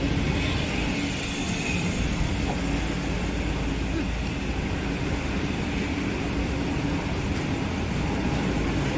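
Steady low rumble of road traffic going on without a break.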